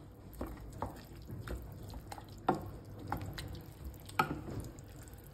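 Wooden spoon stirring a thick, wet tomato-and-rice dish in a stainless steel pot: soft, irregular wet plops and squelches with light knocks, the two loudest about two and a half and four seconds in.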